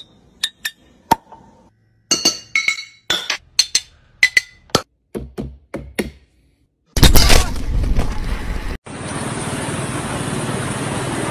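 Glass beer bottles tapped and clinked many times, each a sharp click with a short ringing note. About seven seconds in comes a loud, noisy crash lasting under two seconds, followed by a steady even hiss.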